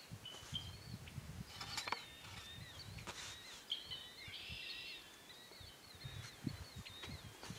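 Outdoor field ambience: several birds chirping with short, wavering high notes throughout, over a low gusting rumble of wind on the microphone.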